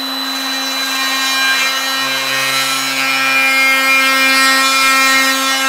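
Oscillating multi-tool running with a steady, even buzz as its blade cuts a notch out of a wooden telescopic architrave.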